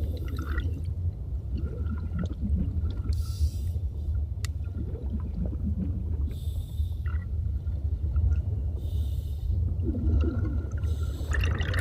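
Scuba diver breathing through a regulator underwater: four hissing breaths a few seconds apart, with bubbling between them, over a steady low underwater rumble.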